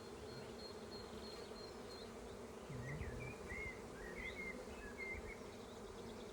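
Honeybees of an open hive colony buzzing, a steady massed hum, with a dull knock about three seconds in.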